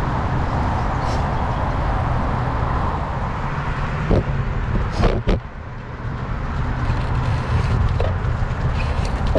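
Wind rushing over a GoPro's microphone while riding a road bike: a steady low rumble, with a few sharp clicks about four to five seconds in.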